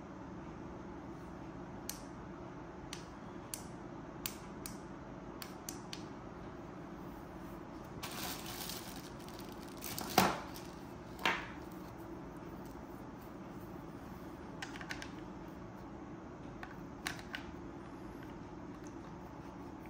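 Handling noise from a plastic dash cam and its mount: scattered small clicks and taps, a plastic bag crinkling about eight seconds in, and two louder clacks around ten and eleven seconds in, over a steady low room hum.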